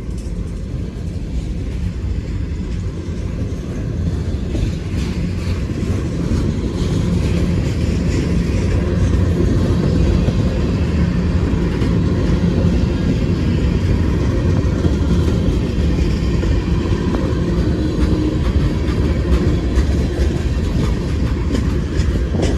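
Slow freight train rolling past close by: a steady rumble of wheels on rail, with the low drone of mid-train distributed-power diesel locomotives. It grows louder over the first several seconds, then holds.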